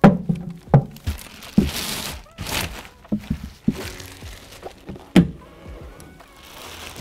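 Clear plastic bag crinkling as it is pulled off a black plastic hydroponic bucket, with several sharp knocks of the plastic buckets being handled and set down, the loudest at the start and about five seconds in. Music plays in the background.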